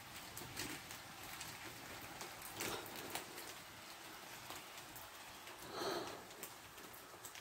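Rain leaking into a derelict house, heard as faint scattered drips and patter. Two brief, somewhat louder sounds come about two and a half and six seconds in.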